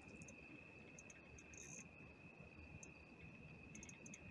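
Near silence: a faint, steady high-pitched cricket trill with a few faint scattered ticks.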